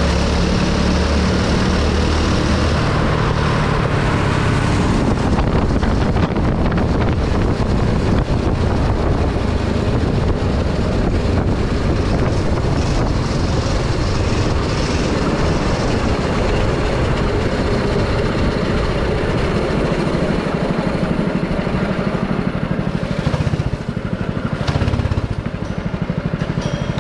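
Go-kart engine running hard, heard from the driver's seat with rushing wind on the microphone. About 23 seconds in the engine drops off and turns to a slower pulsing note as the kart slows into the pit lane.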